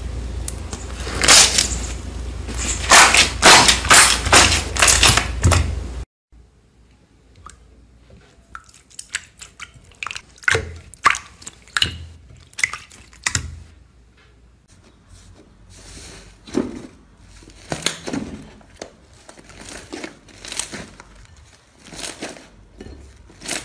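Slime handled by hand. For about six seconds it is pushed through and pulled off a wire rack with many sharp crackling pops. After a sudden cut come quieter scattered clicks and squishes as slime is poked and stretched in a glass bowl.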